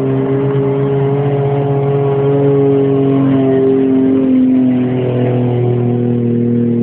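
Car engine running steadily while driving, heard from inside the car, its note holding and then shifting slightly about four and a half seconds in.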